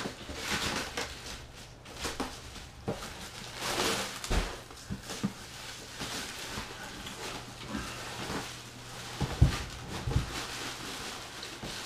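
Plastic bag rustling and crinkling as it is pulled off a cardboard turntable box, with a few dull knocks of the box being handled, the loudest late on.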